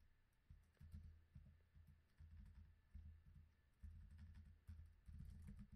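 Near silence: faint room tone with a low rumble that comes and goes and a few faint computer keyboard key clicks.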